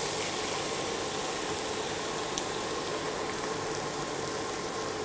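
Steady sizzling of an onion, garlic and green-chili masala frying in oil in a pan.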